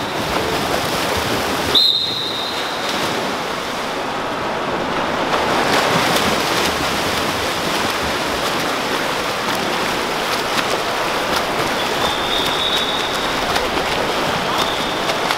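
Several swimmers swimming freestyle in a pool: continuous splashing and churning water. A high steady beep sounds about two seconds in, and fainter ones come near the end.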